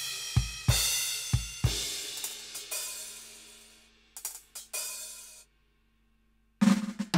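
Roland TD-17KVX V-Drums electronic kit played: a crash cymbal struck with several bass drum hits, the cymbal ringing out and fading over a few seconds. A few light hits follow, then a short silence, and a tom fill starts near the end.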